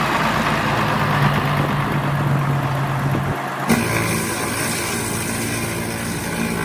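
Engine-driven machinery running steadily, a rough, noisy sound over a low hum. About four seconds in, it cuts suddenly to a steadier engine drone.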